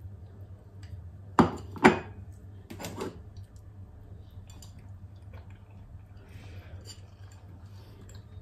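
A metal fork clinking against a ceramic plate: two sharp clinks about half a second apart, then a few lighter taps, followed by faint small sounds.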